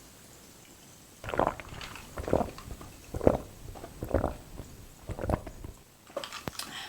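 Close-miked chewing of creamy chicken fettuccine alfredo, in about five loud strokes roughly a second apart, with sharper clicky mouth sounds near the end.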